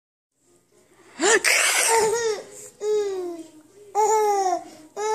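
Baby's high-pitched vocalizing: a breathy laughing outburst about a second in, then three drawn-out calls, each sliding down in pitch.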